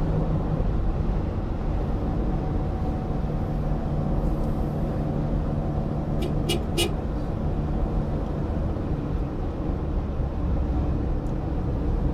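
Steady engine and road noise from a moving car, heard from inside, with a few short clicks about six and a half seconds in.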